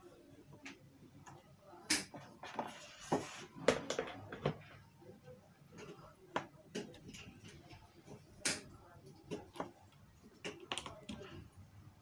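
Scattered small clicks and light knocks from hands handling wires and the plastic casing of an opened hair dryer, the loudest about two, four and eight and a half seconds in.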